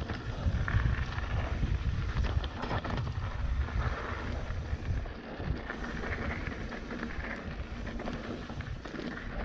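Trek Remedy mountain bike rolling along a dirt trail while being ridden: wind rumbling steadily on the microphone, over the tyre noise, with scattered light clicks and rattles.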